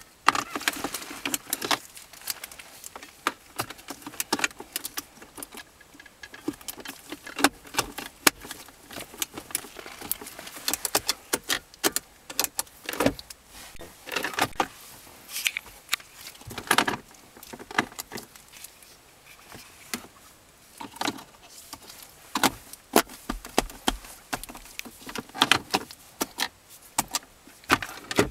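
Hard plastic console trim being handled and fitted: a 2003-2007 Honda Accord center console storage pocket pushed into its opening around the shifter, with irregular clicks, knocks and rattles throughout.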